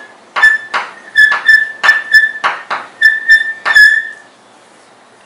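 Chalk writing on a blackboard: about a dozen short, high squeaks with light taps as the strokes are made, stopping about four seconds in.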